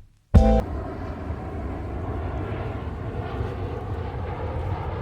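A brief pitched blip, then a steady low rumble, like a running motor heard outdoors.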